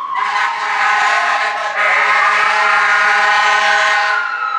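Emergency vehicle siren wailing in slow falling and rising sweeps, with a loud, steady, pitched blast over it for about four seconds that cuts off near the end.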